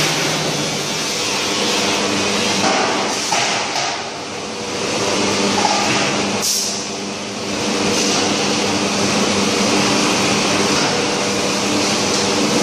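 Steady machinery noise from a steel drum production line: a continuous hiss with a low hum underneath. Two brief louder bursts come about three and six seconds in.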